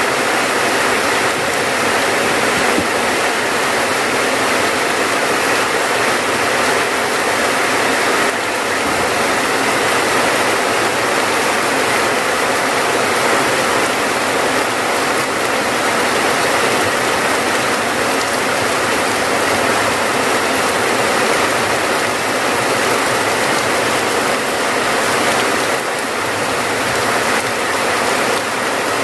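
Steady heavy rainfall, a dense, even hiss of drops that holds unchanged throughout.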